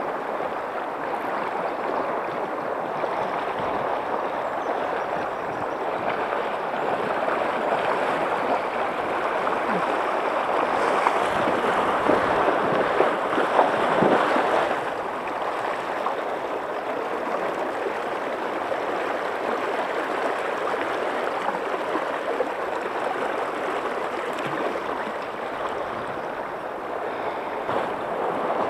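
Shallow river rushing steadily over a gravel riffle around a wading angler. The water noise swells for a few seconds in the middle, with a few sharp splashes as a landing net is dipped into the current.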